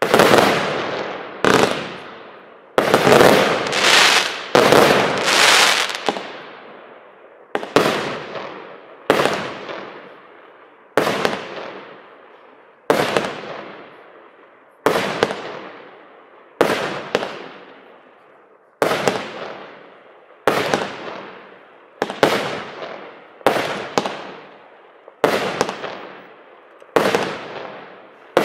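NICO Bling Bling 146-shot compound firework cake, about 30 mm calibre, firing. A quick run of loud bangs comes in the first six seconds, then single shots about once a second, each a sharp bang that trails off over about a second.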